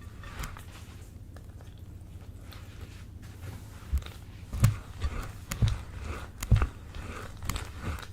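Slime being squeezed and pressed by hand. After a few quiet seconds come sticky squelches and sharp pops, several of them louder snaps with a dull thud.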